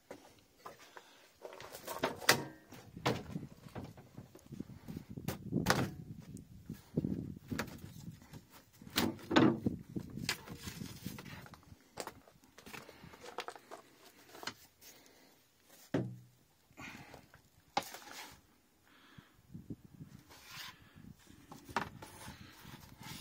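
Handling noise of a hand-made fibreglass sunroof panel being lifted off the roof and turned in the hand: irregular knocks, clicks and scraping, with one heavier knock about two-thirds of the way in.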